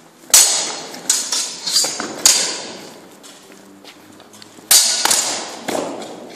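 Steel swords striking in a full-contact sword fight: a quick flurry of about five ringing metal blows, a pause, then another burst of three blows near the end.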